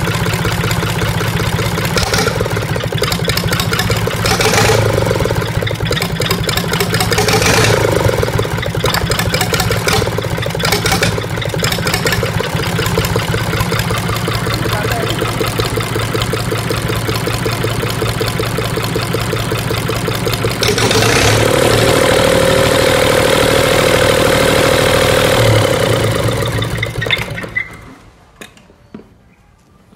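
Mitsubishi L3E three-cylinder diesel engine running on test after a full tune-up, revved briefly several times, then held at a higher speed for a few seconds before it is shut off and runs down near the end.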